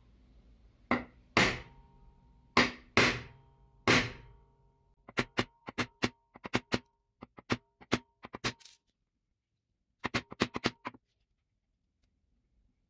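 A series of sharp knocks with a slight ring: five heavy hits in the first few seconds, then a quick run of lighter taps, and a short burst of taps near the end.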